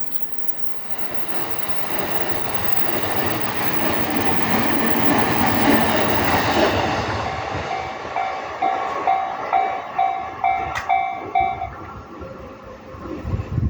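A JR Tokaido Line train passing over a level crossing: its rumble builds to a peak about six seconds in, then fades. As it fades, the crossing's electronic warning bell can be heard dinging about twice a second, and it stops a couple of seconds before the end.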